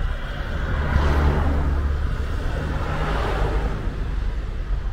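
Wind buffeting the microphone outdoors: a heavy rumble, with gusts of rushing noise that swell about a second in and again near the middle.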